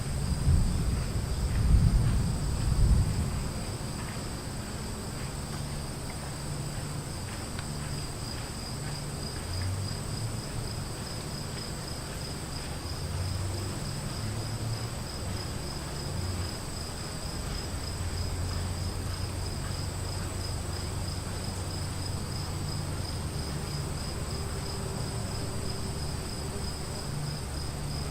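Insects chirring steadily in two high tones, the lower one pulsing rapidly. A roll of thunder rumbles loudly in the first three seconds and dies away into a low, distant rumble.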